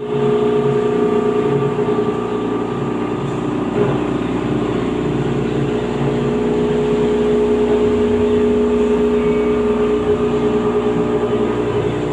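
CNC machine running: a steady mechanical whine made of several held tones, with lower tones that step up and down in pitch every half second or so.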